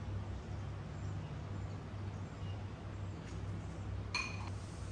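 A steady low hum with one short ringing clink of glass about four seconds in.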